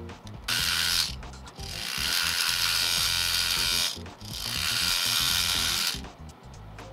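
Small resin garage-kit part rubbed quickly back and forth against a sponge sanding stick: a dry, hissy scraping in three runs, a short one and then two of about two seconds each.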